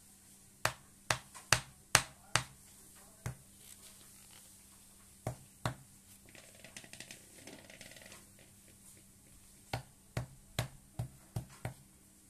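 Sharp, irregular knocks in three clusters: about seven in the first few seconds, two a little past the middle, and six quicker ones near the end, with soft rustling between them. These are kitchen knocks during ingredient preparation.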